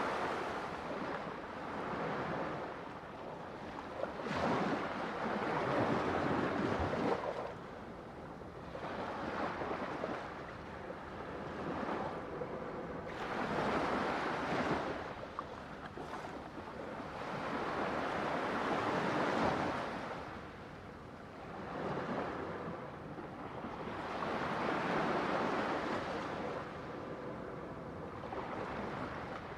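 Ocean waves breaking and washing up, a rushing surf that swells and falls back every few seconds.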